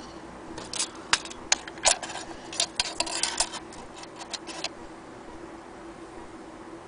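Plato flip carriage clock clicking: a run of irregular sharp clicks, some close together, starting about half a second in and stopping a little before five seconds, over a faint steady hum.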